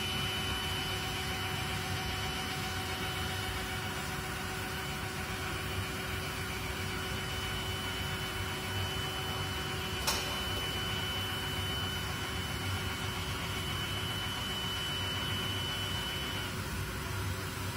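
Roland DWX-52DC dental milling machine running at start-up: a steady mechanical hum with a high whine that stops near the end, and a single click about ten seconds in.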